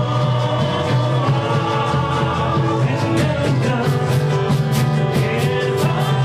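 A band playing music with a steady drum beat under sustained bass and melody notes.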